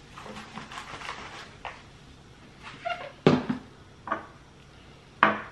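Kitchen handling sounds: a light rustle of dry coating powder poured from a plastic jar, then a handful of sharp knocks and clacks, the loudest a little past three seconds in and another near the end, as the jar and utensils are set down on a granite countertop.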